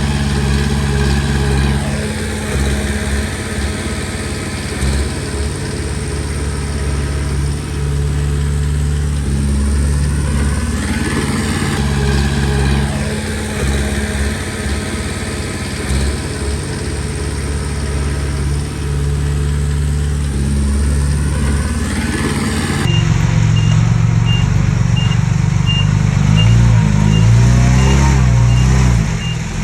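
Komatsu D20P bulldozer's diesel engine running steadily, with whining tones that slide up and down a few times. About 23 seconds in, the sound turns abruptly to a louder, deeper engine with a reversing alarm beeping about twice a second.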